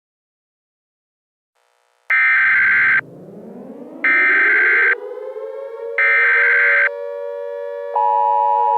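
Emergency Alert System alert: after about two seconds of silence, three loud buzzy bursts of SAME header data tones, each about a second long, play over a siren winding up in pitch. Near the end the steady two-tone EAS attention signal starts, with the siren still sounding.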